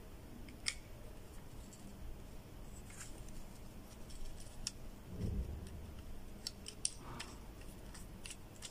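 Scattered sharp plastic clicks and knocks as the phone holder is fitted onto a K20 selfie stick, with a soft low thump about five seconds in.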